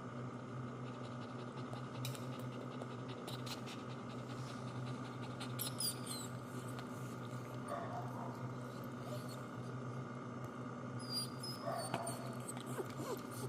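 Bichon dog giving a few faint, high squeaks, about six seconds in and again near the end, over a steady hum.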